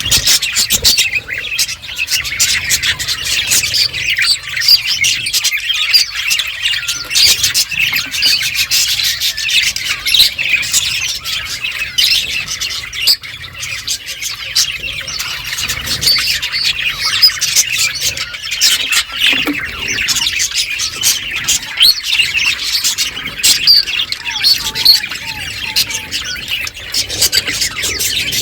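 Several budgerigars chattering and chirping without pause, a dense run of quick squawks and warbles, with many sharp little clicks mixed in.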